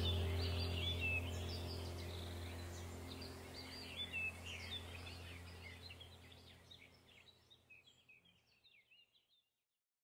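Background soundtrack of birds chirping over a steady low drone, fading out steadily to silence about seven seconds in.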